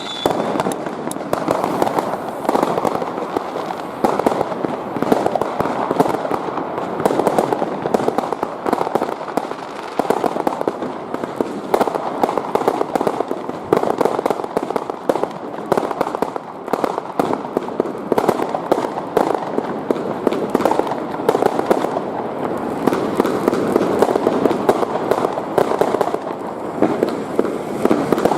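Dense, unbroken barrage of fireworks and firecrackers going off all around, with countless overlapping bangs and crackles and no pause: many people's fireworks at once across a town. A rocket's short falling whistle is heard right at the start.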